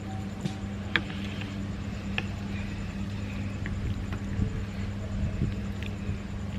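Metal spoon and fork clinking and scraping against a glass plate of rice and vegetables, a few separate sharp clinks, over a steady low hum.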